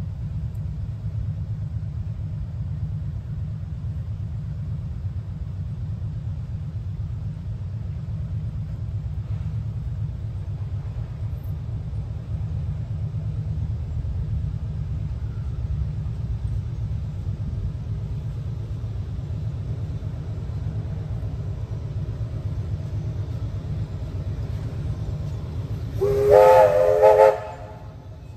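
Steam locomotive 3001 sounds one short whistle blast near the end, about a second and a half long, as it runs up to a level crossing; it cuts off sharply. Under it, a steady low rumble.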